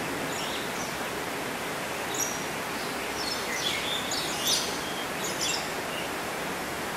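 Steady outdoor hiss with short, high chirps from small birds scattered through it, most of them bunched between about two and six seconds in.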